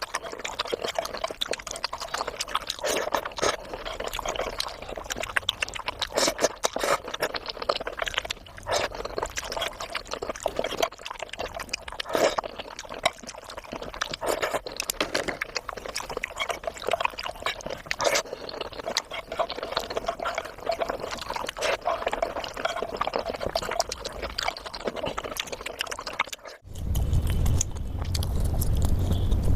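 Close-miked wet chewing and smacking of food, with dense, irregular clicks and crackles. After a brief break near the end, a steady low hum comes in under sparser mouth sounds.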